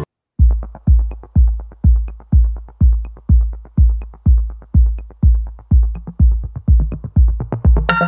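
Background music: a steady electronic drum beat of about two kicks a second with light ticks on top, starting about half a second in. Tuneful synth parts join near the end.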